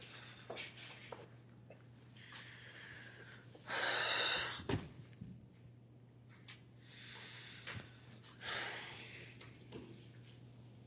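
A man's heavy breathing and sighs: a long, loud exhale about four seconds in that ends in a sharp knock, softer breaths around it, and another strong exhale near the end. A faint steady hum underneath.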